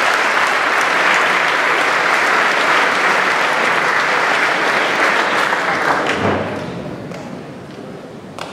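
Audience applauding a prize winner, fading away about six seconds in.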